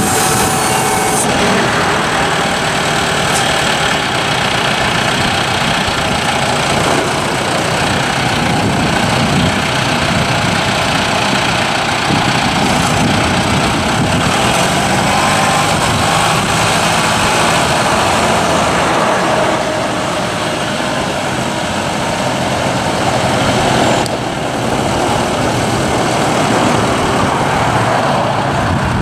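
John Deere 5100M tractor's turbocharged four-cylinder diesel engine running steadily as the tractor drives and works its front loader, a little quieter for a few seconds past the middle.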